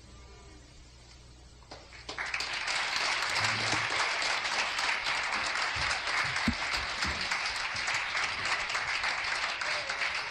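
The last notes of a rock song dying away, then an audience breaking into applause about two seconds in and clapping steadily.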